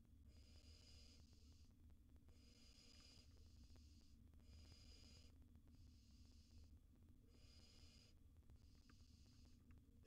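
Faint, repeated hissing snore calls of barn owl nestlings, the food-begging call of young barn owls: about six calls, each about a second long, coming roughly every one and a half seconds over a low steady hum.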